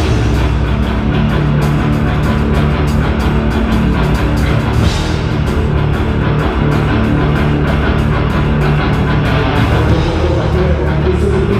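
A live heavy rock band playing the intro of a song: guitars and bass held over a steady drum beat.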